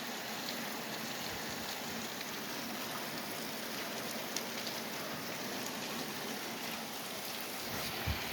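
Steady rain falling, an even hiss with scattered drop ticks, and a single low thump near the end.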